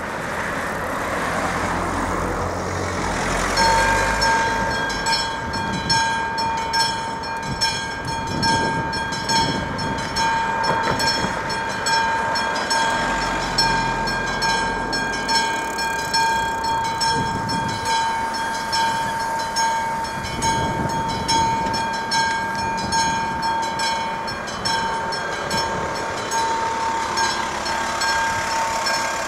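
AŽD 71 level-crossing signal's classic mechanical bell starts ringing about three and a half seconds in and keeps ringing steadily with rapid repeated strokes, the warning that a train is coming and the barriers are lowering. Before it starts, a car drives over the crossing.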